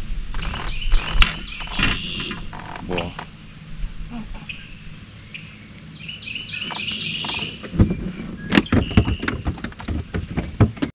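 Scattered clicks and knocks of a just-landed bream and its hook being handled on the deck of a small fishing boat, busiest about a second in and again toward the end, with small birds chirping in the background.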